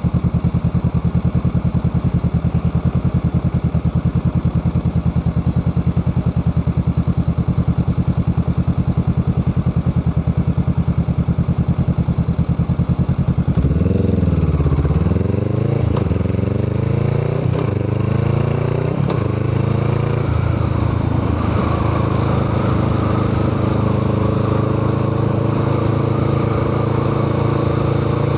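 Honda Rebel 500's parallel-twin engine breathing through a Musarri aftermarket muffler: a steady, pulsing idle for about half the time. Then the revs climb and drop back several times in quick succession, as when pulling away through the gears, and settle into a steady, higher engine note.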